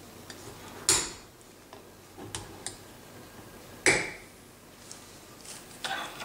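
Metal clacks of a brake master cylinder's steel reservoir cover being seated and its wire bail retainers snapped into place: two sharp clacks about three seconds apart, with lighter clicks between and a short cluster of clicks near the end.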